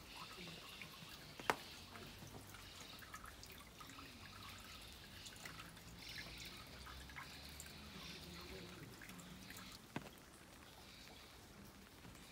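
Water trickling and dripping from the bamboo spout of a temple purification basin into the stone trough, faint, with many small drips. A sharp click about a second and a half in, and a smaller one later.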